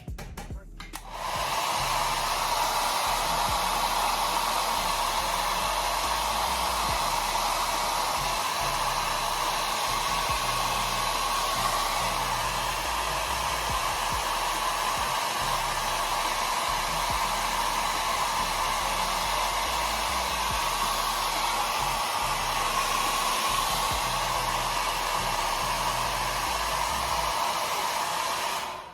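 Handheld hair dryer blowing steadily. It switches on about a second in and cuts off near the end.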